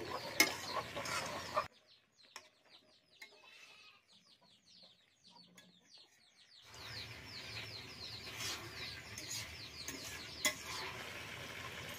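Chicks cheeping in a steady run of short, falling peeps, over the sizzle of goat-meat and cauliflower curry frying in a metal kadai as a spatula stirs it. The sizzle drops away for about five seconds in the middle and returns, with a few sharp clicks of the spatula against the pan.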